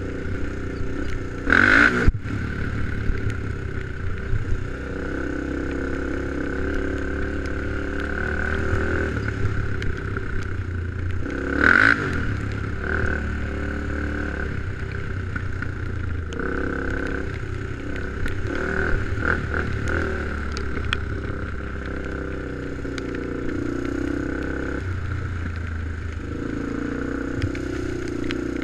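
ATV engine running as the quad rides over a rough, snowy trail, its note rising and falling with the throttle. Two loud knocks sound, about two seconds in and again near the middle.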